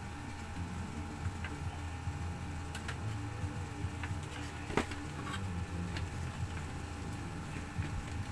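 Scattered light clicks and knocks of hands working a lead-acid battery and its connectors loose inside a UPS-style portable power generator. The sharpest click comes a little before the middle.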